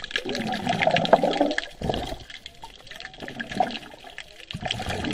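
Water rushing and gurgling in uneven surges.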